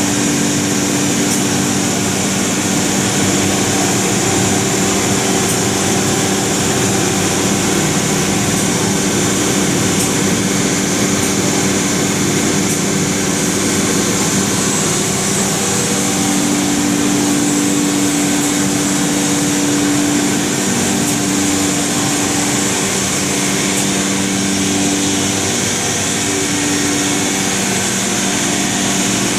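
Weeke CNC router machining, a steady, loud machine drone with a high whine over a lower hum. About halfway through, the hum strengthens and then comes and goes.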